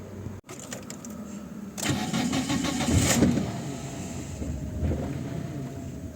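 Car engine cranked by the starter with quick regular pulses, catching after about a second and then running more quietly. The engine still has no proper idle after the throttle body and idle air control valve work.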